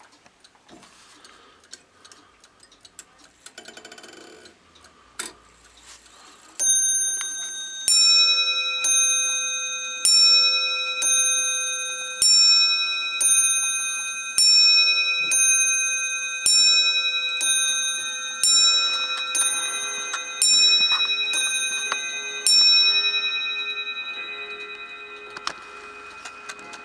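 Mechanical clock movement ticking faintly, then striking its cup bell with a hammer: a run of more than a dozen ringing strikes, about one a second, each ring dying away. The ringing fades out near the end.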